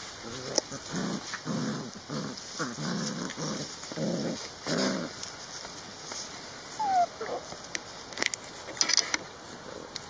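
Giant schnauzer puppies play-growling: a run of short low growls, about two a second, then a brief high whine partway through.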